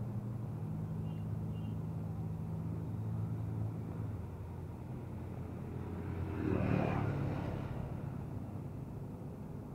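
Road traffic: an engine humming steadily at a low pitch, and a vehicle passing close, swelling to its loudest about seven seconds in and then fading away.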